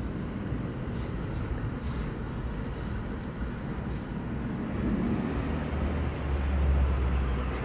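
Steady low rumble of distant vehicle noise, with a deeper low rumble swelling about six seconds in.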